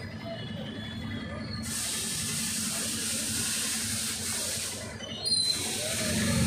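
Steady hiss of water, cutting in about two seconds in, breaking off briefly near five seconds and returning, over a low steady hum.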